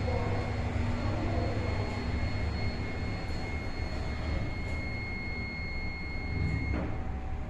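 Hitachi freight elevator car travelling down: a steady low rumble with a thin high-pitched whine, the whine cutting off near the end.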